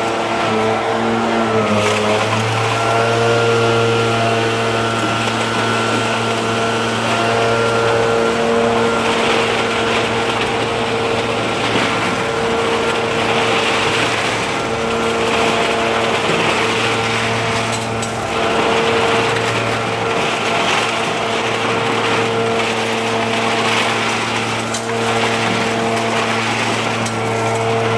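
Gas leaf blower running at high throttle: a steady engine whine under a rush of air that swells and fades as the nozzle is swept around. The engine pitch dips briefly near the start, then holds steady.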